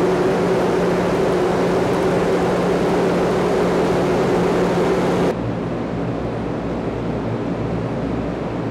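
Wind tunnel running: a loud, steady rush of air with a low hum. About five seconds in the level drops slightly and the hum fades, leaving a steadier rush.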